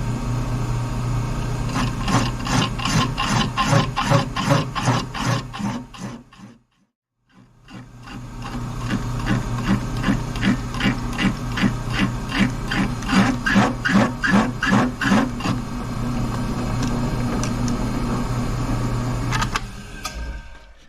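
Machine spindle turning an old, worn boring head, the single-point cutter taking a cut with a rhythmic chatter about three or four times a second. It stops completely about six seconds in, starts again a second later and cuts until about two-thirds through, then runs on without chatter and winds down near the end. The cutting tool is worn.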